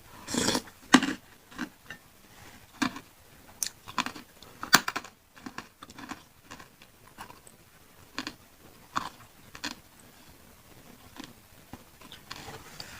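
Close-miked chewing of pentol, Indonesian meatballs in chili sauce: irregular wet mouth clicks and bites, loudest about a second in and again near the middle.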